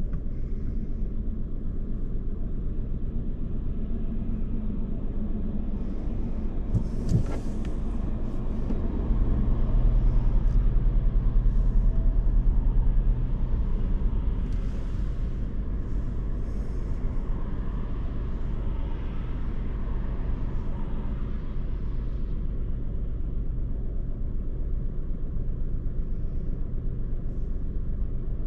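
Car driving through city streets: a steady low rumble of engine and road noise. A brief sharp click comes about seven seconds in, and the rumble swells louder for a few seconds soon after.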